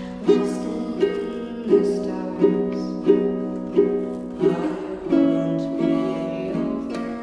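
A plucked string instrument, likely a ukulele, playing a chord pattern: evenly spaced chord strokes about two-thirds of a second apart, then a longer-held chord about five seconds in.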